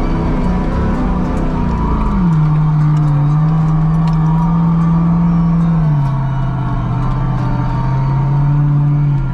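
Off-road vehicle's engine running under load through soft sand, its note steady and then stepping down in pitch twice, about two seconds in and again about six seconds in.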